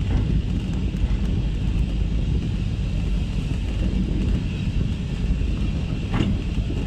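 Steady low rumble of a railway brake van running along the track, with a brief higher sound about six seconds in.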